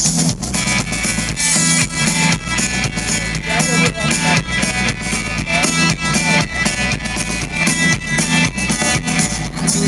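Live band playing an instrumental passage: guitar over a steady, driving drum beat.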